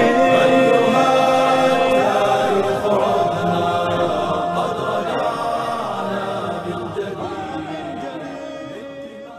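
A choir singing an Arabic nasheed, the opening theme song, with long held notes that fade out toward the end.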